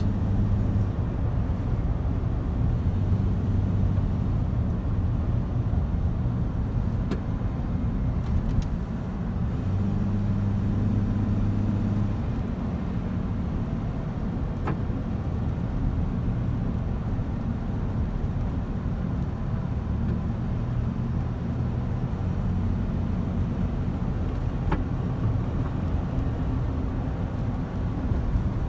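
Truck engine and tyre noise heard from inside the cab while driving at steady speed: a continuous low drone that swells for a couple of seconds about ten seconds in and again near the end.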